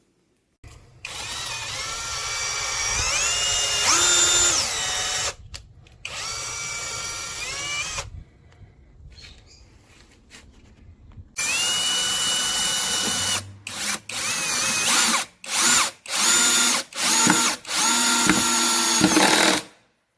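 AKZWOXRO 21V cordless drill driver's motor running in several trigger pulls. The whine steps up in pitch as the trigger is squeezed further, then comes in a quick run of short on-off bursts in the second half.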